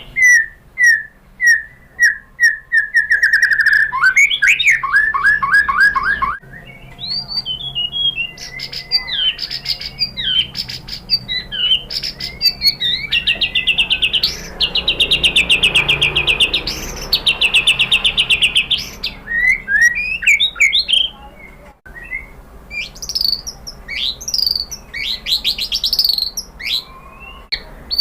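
White-rumped shama (murai batu) singing a loud, varied song of clear whistles, repeated notes and trills, with a long fast rattling run of notes in the middle. The song breaks off abruptly twice.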